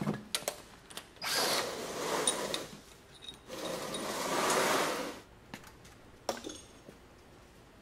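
Cordless power tool with a socket spinning out cylinder head bolts on a Ford 289 V8, in two runs of about a second and a half each, followed by a few short clacks of metal.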